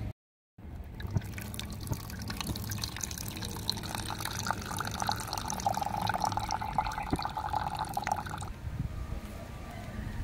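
Water poured in a thin stream into an unglazed clay pot, splashing and bubbling as the pot fills. A steady ringing tone comes into the splash about halfway through, and the pour stops about two seconds before the end.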